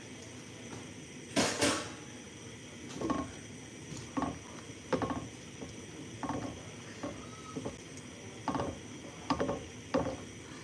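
Cookware clatter: a loud clatter about a second and a half in, then short knocks roughly once a second as a spoon stirs sauce in a stainless steel pan on a gas stove.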